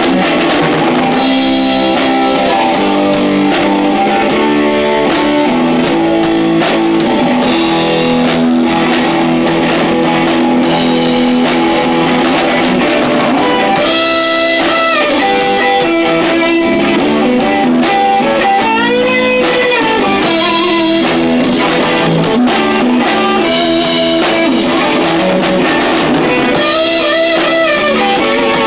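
Rock band playing live: electric guitar, bass guitar and drum kit with cymbals. From about halfway through, the guitar plays bending notes over the rhythm.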